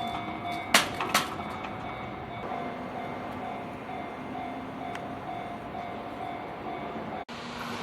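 Japanese level-crossing warning bell ringing in a steady, evenly repeating ding, with two sharp knocks about a second in. It cuts off abruptly near the end.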